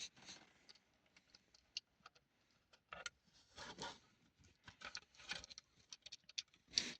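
Faint, irregular light clicks and rustles of small plastic optical smoke alarms being handled, with a sharper click near the end.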